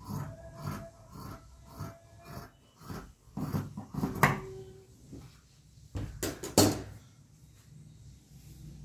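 Large tailor's scissors cutting through suit fabric in steady snips, about two a second, for the first four seconds. About six seconds in come a few louder knocks, the scissors being laid down on the stone tabletop.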